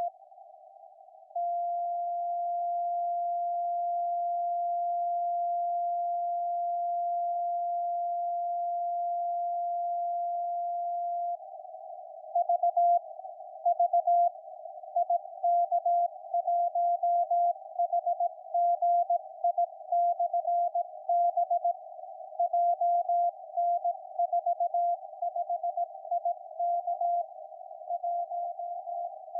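Amateur radio Morse (CW) beacon IK1HGI on the 40-metre band, heard as a 700 Hz tone through a receiver's narrow CW filter over a band of static hiss. About a second in, it sends one steady carrier lasting about ten seconds, then switches to quick on-off Morse keying.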